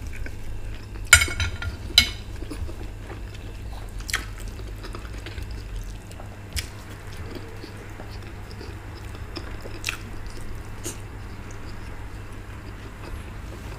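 Quiet table eating sounds: a few sharp clinks of a metal fork on a china plate, the loudest a short ringing cluster about a second in, with scattered single clicks after, over a low steady hum.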